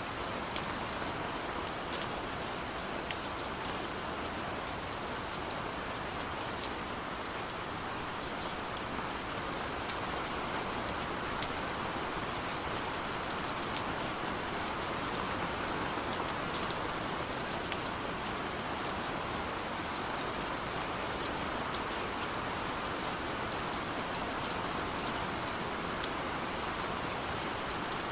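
Steady gentle rain falling: an even hiss of rainfall with scattered individual drop ticks standing out here and there.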